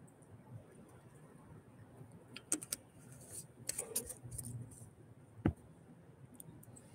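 Faint handling of a plastic drink bottle after a swig: a few clicks and crinkles over about two seconds, then a single sharp knock.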